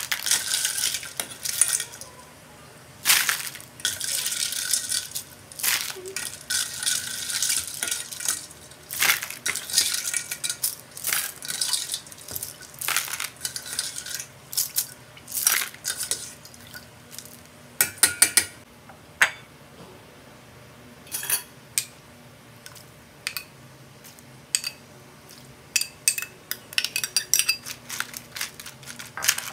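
Metal strainer and ladle scooping chicken feet and ice cubes out of iced water: irregular clusters of sharp clinks and clatter of metal and ice against a stainless steel bowl.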